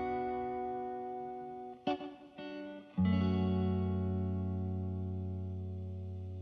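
Background music: held chords ringing out and slowly fading, with a couple of short plucked notes and then a new, lower chord struck about three seconds in.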